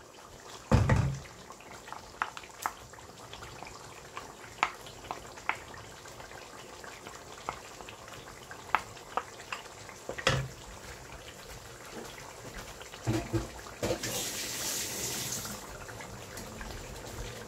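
A wooden spoon tapping and scraping plain yogurt out of a glass bowl into a pan of simmering lamb curry sauce. It gives a string of sharp clicks and two heavier knocks, with a short hiss near the end.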